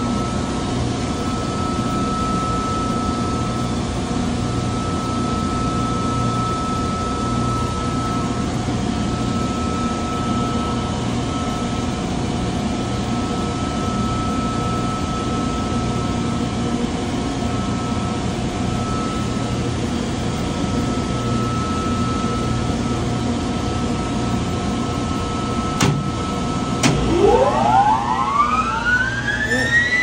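Steady plant-room machinery hum with a few steady tones. Near the end come two sharp clicks as the star-delta starter's contactors pull in, then a rising whine as the Trane centrifugal chiller's compressor motor starts and spins up.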